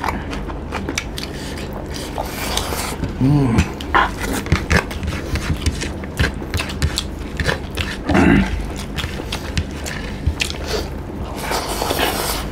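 Eating sounds: chewing and lip smacking with many small wet mouth clicks, as rice and chicken are eaten by hand. Two short low voice sounds come in, at about 3 seconds and again at about 8 seconds.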